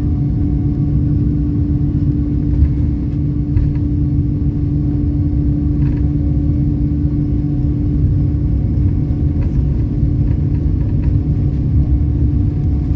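Steady low rumble of a vehicle in motion, with a constant droning hum over it and a few faint clicks.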